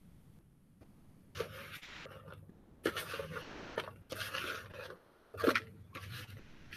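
A spoon scraping crumbly cake-mix crumble around a plastic mixing bowl in several rough strokes, with a sharp knock about five and a half seconds in.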